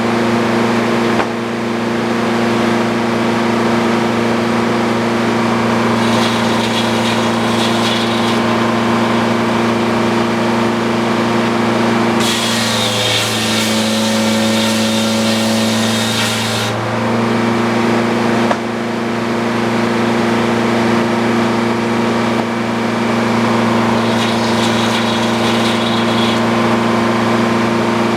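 Old Frick sawmill running steadily with a low, even machine hum. From about 12 to 17 seconds a louder hiss rises over it with a slight dip in pitch, as the saw cuts through the log under load, with lighter hissing passes around 6 and 24 seconds.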